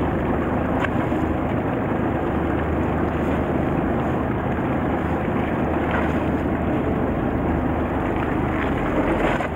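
Fishing boat's engine running with a steady low hum, under an even rush of wind and water.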